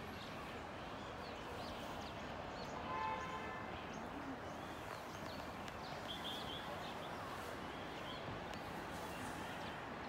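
Outdoor city ambience: a steady distant hum of the city below, with small birds chirping on and off. About three seconds in, a short pitched tone stands out briefly above the hum.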